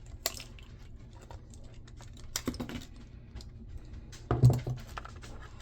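Scattered light clicks and taps of hand tools and plastic parts being handled while a jump starter pack is taken apart, with a sharp click just after the start and a louder knock about four and a half seconds in.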